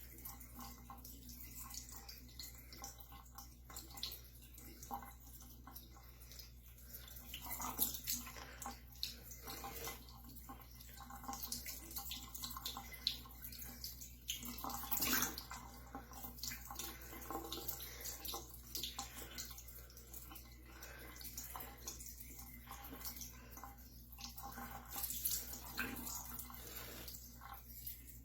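Water splashing and dripping in a cupped hand as a pet budgie bathes in it, in irregular splashes of varying loudness.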